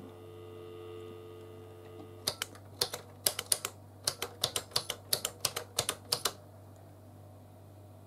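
Dial tone from the handset of a 1981 GPO 782 touchtone telephone: a steady two-note hum that stops about two seconds in. Then the phone's press buttons click rapidly for about four seconds as a number is keyed in.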